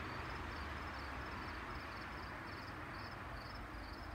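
A cricket chirping steadily, two to three short, high chirps a second, over a steady hiss of outdoor background noise.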